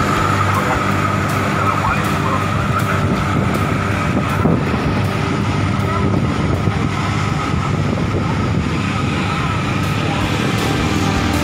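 Disinfectant spray truck running its mist-cannon sprayer, a steady engine drone with a high whine that fades as the truck moves off, over the noise of passing street traffic.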